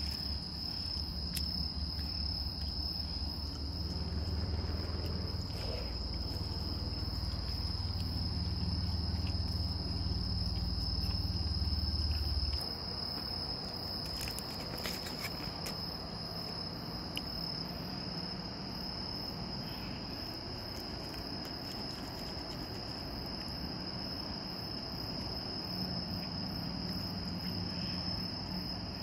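Steady high-pitched insect trill running without a break. Under it, a low rumble for the first dozen seconds cuts off suddenly.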